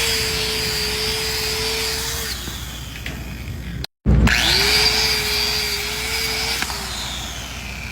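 Electric grinder spinning up, running with a steady whine, then switched off and winding down, twice; each run lasts about two and a half seconds, the second starting about four seconds in.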